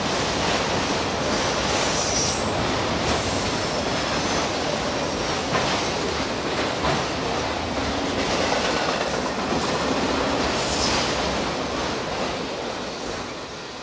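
Norfolk Southern freight train of autorack cars rolling past: steady wheel-on-rail noise with clickety-clack over the joints and brief high wheel squeals, about 2 s in and again near 11 s. The sound fades near the end as the last cars go by.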